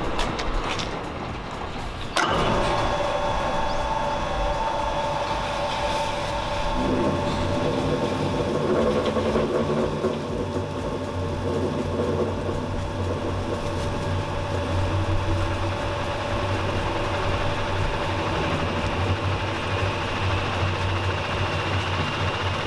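Tanabe Willtec CS113 top-discharge basket centrifuge switched on about two seconds in, spinning up with a steady mechanical whine. A low hum joins a few seconds later and grows as the basket gains speed.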